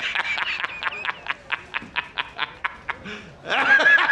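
A rapid, stuttering snickering laugh, a string of short croaky pulses at about five or six a second. Near the end it breaks into a longer, higher drawn-out squeal before the pulses resume.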